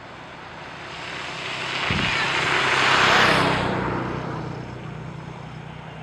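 A vehicle passing by: a rushing noise swells to a peak about three seconds in and fades, over a low steady engine hum that carries on after it.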